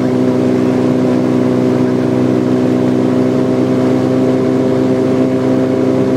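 Titan Tornado Super Stretch light aircraft's engine and propeller droning steadily, heard from inside the cockpit on final approach to the runway.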